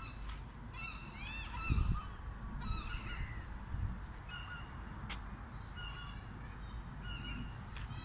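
A flock of water birds on a lake calling, many short calls in quick series, each rising and falling in pitch, over a steady low rumble.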